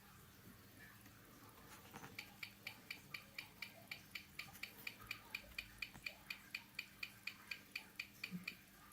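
A Yema automatic watch with an in-house movement ticking at about four ticks a second, starting about two seconds in, picked up on a timegrapher. The freshly serviced movement is running erratically, gaining time and upsetting the timegrapher's readings.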